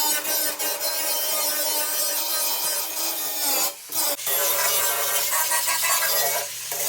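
Power tool cutting into the metal chassis bars: a loud, steady rasping noise with a whine through it, which drops out briefly twice near the middle.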